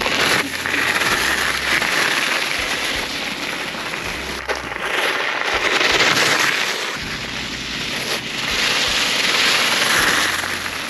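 Pea gravel crunching and spraying under the 10-inch pneumatic tyres of a Varla Eagle One all-wheel-drive electric scooter as it rides through loose gravel. The crackle swells and eases several times.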